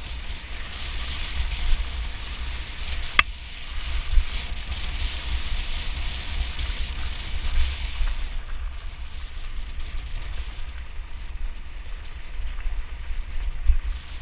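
Wind buffeting the microphone of a camera riding on a mountain bike, over a steady hiss of tyres rolling on a gravel trail that eases after about eight seconds. One sharp click about three seconds in.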